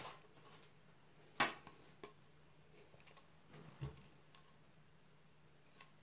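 Handling noise of a plastic Samsung wireless charging pad: a few scattered clicks and taps as it is turned over and its underside is picked at, the sharpest about a second and a half in.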